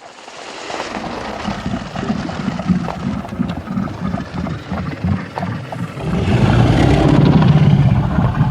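Dragon sound effect: a rough, rumbling noise with irregular low pulses that swells louder about six seconds in.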